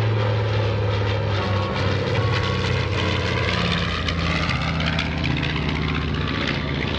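A North American B-25 Mitchell's twin Wright R-2600 radial engines running at power as the bomber flies past. It is a loud, steady propeller-engine sound whose pitch drops slightly partway through as the plane goes by.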